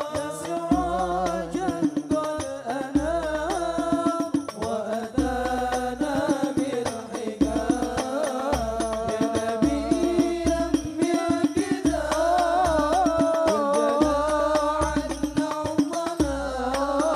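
Hadroh ensemble playing Islamic sholawat: male voices sing an Arabic devotional melody with ornamented, wavering lines over a busy rhythm of hand-struck frame drums, a darbuka and deep bass-drum strokes.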